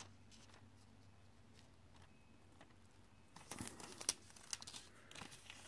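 Plastic packaging of nail confetti crinkling and rustling as it is handled, a scatter of soft rustles and clicks that starts a little past halfway, after a quiet stretch with only a faint steady hum.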